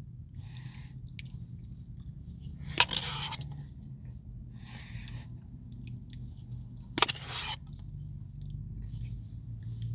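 A person eating a Dairy Queen brownie Blizzard, chewing with sharp scrapes or knocks about three and seven seconds in, and softer ones in between.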